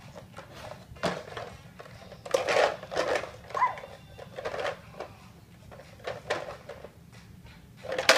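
Small plastic toys rattling and clattering inside a plastic toy basket as it is picked up and swung, in several separate bursts. The loudest clatter comes near the end as the basket tips and the toys spill out.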